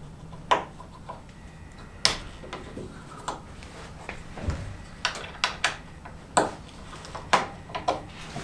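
Irregular clicks, taps and small knocks of a wiring harness and its plastic clips and connectors being worked loose by hand and pulled off a Jeep Wrangler's windshield frame.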